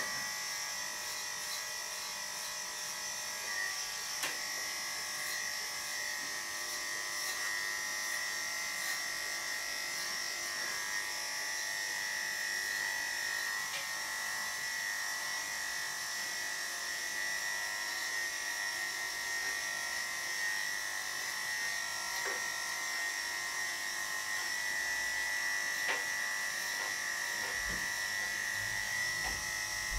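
Electric dog grooming clippers with a 3 mm guard comb running steadily as they shave a bichon frise's coat, a constant high-pitched hum with faint occasional ticks.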